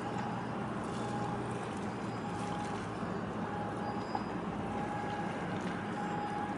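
Harbour ambience: a steady low engine drone from ship traffic under an even wash of background noise, with a thin faint tone that comes and goes.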